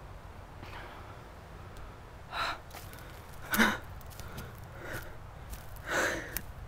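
A person breathing hard in short, sharp gasps, about one every second or so, while hurrying on foot.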